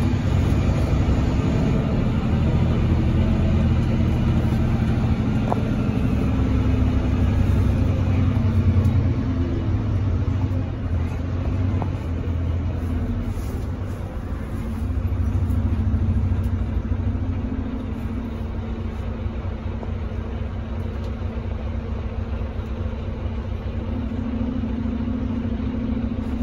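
Volvo B9RLE city bus's rear-mounted diesel engine running as the bus drives, heard from inside the passenger cabin near the back. Its pitch and loudness rise and fall, and it settles steadier and a little quieter in the last third.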